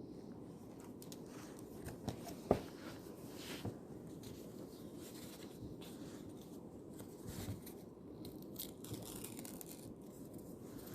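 Quiet library room hum with paper rustling and small handling noises from studying, including a sharp click about two and a half seconds in.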